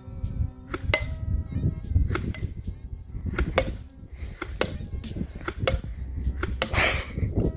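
Wind buffeting the phone's microphone in a low rumble, with a string of sharp clicks and knocks at irregular intervals and a short rustle near the end.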